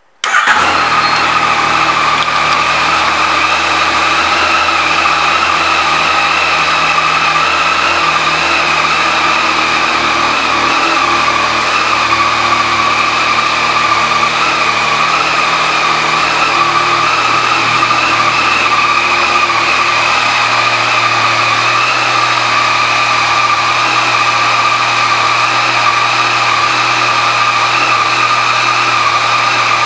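Yamaha Tracer 900 GT's 847 cc inline-three engine idling steadily, with no revving.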